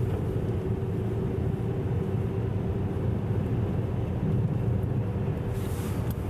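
Steady low rumble of a car's engine and tyres on a wet road, heard from inside the moving car, with a faint steady hum through it and a brief hiss near the end.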